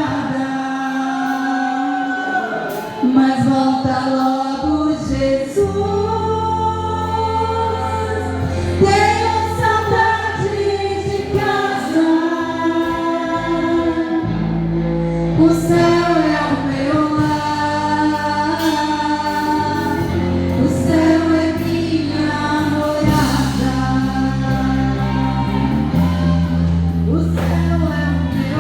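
Live worship music: a group of singers sustaining long sung notes over keyboard and bass, the bass coming in about five seconds in.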